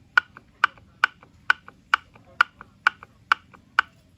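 Sharp mechanical clicks at an even pace, a little over two a second, each followed by a fainter click.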